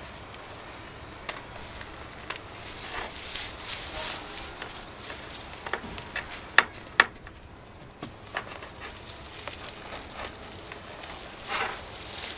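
Dry leaves, stalks and crumbly dry potting soil rustling and crackling as a deep-rooted plant clump is worked loose from a pot by hand. Scattered clicks run through it, with two sharp snaps about halfway through.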